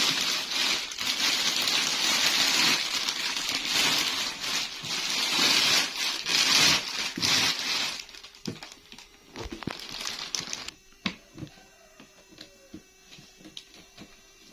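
Packaging crinkling and crackling as a new toy is unwrapped, loud and dense for about eight seconds, then giving way to scattered light clicks and knocks of handling.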